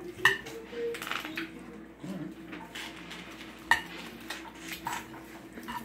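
A metal spoon scraping and clinking against a frying pan as food is scooped from it, with a few sharp clinks among quieter scrapes.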